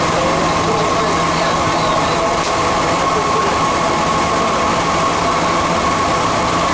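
Santiago Metro Line 2 subway train running, heard from inside the carriage: a steady rumble and rolling noise with a steady high tone over it.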